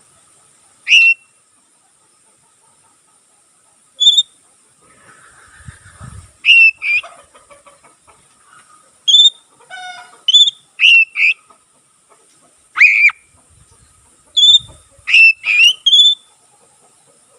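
Oriental magpie-robin (kacer) singing in full voice: loud, short, sharp whistled notes and chirps, about a dozen at irregular intervals, with a quick run of falling notes about ten seconds in.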